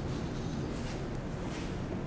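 Steady low room rumble with soft footsteps of a person walking, two steps in about two seconds.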